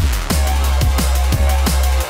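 Drum and bass music: a heavy steady sub-bass under fast, evenly spaced drum hits, with short sounds that fall in pitch after each hit.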